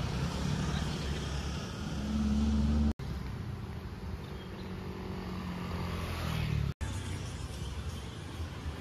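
Road traffic: motor vehicle engines running close by with a steady low hum, loudest about two to three seconds in. The sound drops out sharply twice, at the edit cuts.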